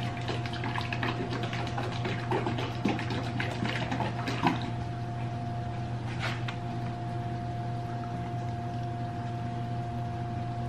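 A bottle of salad dressing being shaken, the liquid sloshing and knocking inside for the first four or five seconds, with one more shake a little later. A steady low hum follows.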